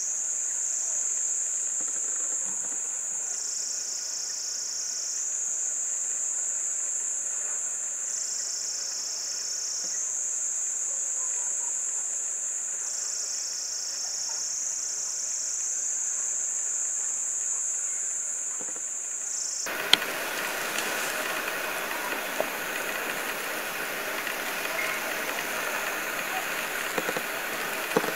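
Shrill, steady insect drone, the chorus of cicadas or crickets, swelling and easing about every five seconds. About two-thirds of the way in it cuts off abruptly, giving way to an even hiss with scattered sharp clicks.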